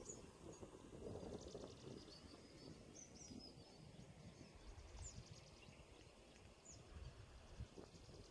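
Near silence: faint outdoor ambience with a low rumble and a few brief, high bird chirps.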